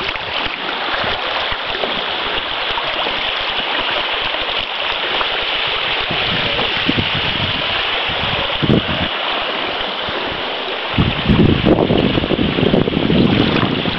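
Shallow gravel creek flowing steadily over a riffle, a continuous rushing babble of water. About eleven seconds in, a low rumble comes in on top of it.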